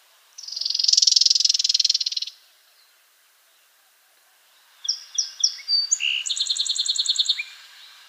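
Common yellowthroat calling: a dry, buzzy rattle lasting about two seconds, then after a pause a few sharp high notes that run into a fast, even trill.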